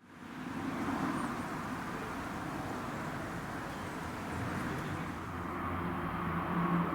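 Irish Rail 071 Class diesel locomotive, with its EMD V12 two-stroke engine, running in the distance as it approaches. It is a steady low engine drone that grows stronger near the end.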